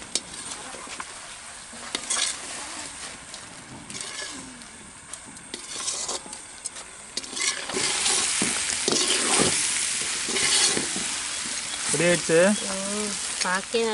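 A metal ladle stirring and scraping chicken chukka around a large metal pot, with scattered scrapes. The masala sizzles as it fries dry, its water cooked off, and the sizzle swells about halfway through. A brief pitched call comes near the end.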